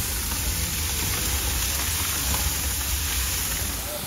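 Large open fuel fire in a container-box fire-training simulator burning steadily: a continuous rushing noise with a deep low rumble underneath.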